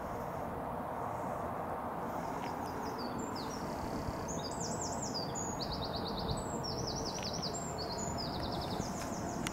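A small bird singing in short bursts of quick, descending chirped trills, starting about two seconds in and repeating to the end, over a steady low rush of outdoor background noise.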